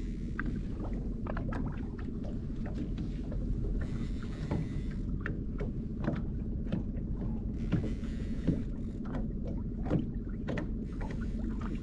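Small boat's outboard motor running slowly at trolling speed, a steady low drone. Scattered clicks and knocks and a few short spells of hiss sound over it.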